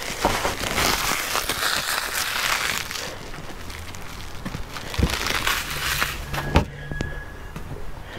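Plastic packaging crinkling as a part is unwrapped, for about three seconds, then a few separate knocks, the sharpest about six and a half seconds in.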